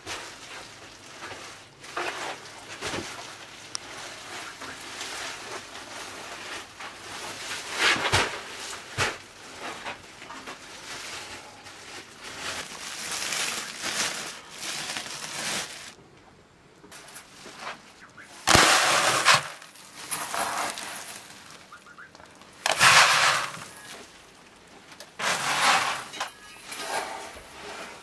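Woven plastic grain sack rustling as it is handled, and dry grain being scooped out by hand and poured into a plastic bucket with a hissing rattle, in several bursts of a second or so.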